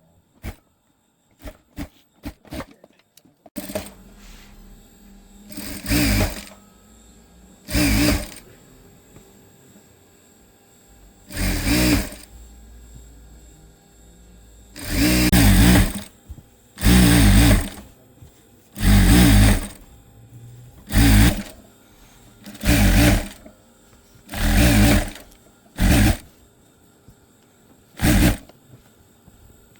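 Sewing machine stitching in short runs of about a second each, stopping and starting about eleven times, with a few light clicks before the first run.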